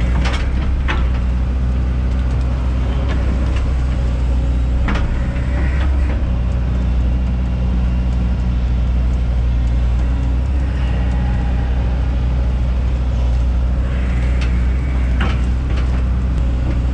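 Hyundai 140 tracked excavator's diesel engine running steadily under digging load, with a few short clunks and scrapes from the bucket working the ground.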